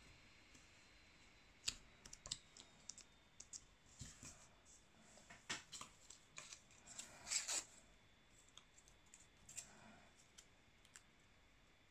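Faint rustling and crackling of small paper scraps being handled and pressed down by hand, with scattered light clicks, the loudest crackle about seven seconds in.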